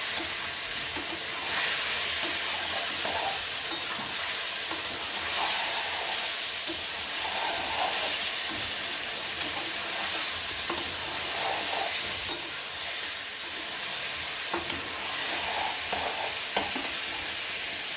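Chicken pieces frying in hot oil in a pan, a steady sizzle, while a utensil stirs the meat with scrapes and sharp clicks against the pan every second or two.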